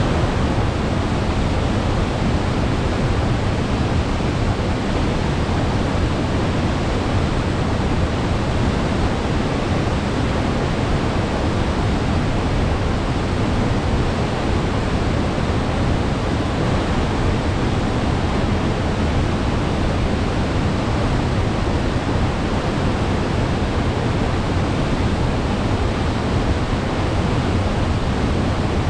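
River waterfall: heavy spring flow pouring over the falls in a loud, steady rush with a deep rumble underneath.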